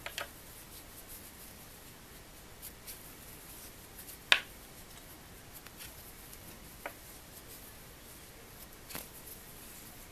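Soft handling noise and a scattered few small clicks from a Tunisian crochet hook and yarn being worked by hand, with one sharper click a little over four seconds in.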